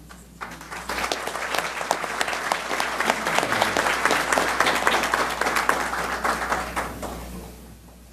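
Audience applauding. The clapping starts about half a second in, builds within the first second, and dies away near the end.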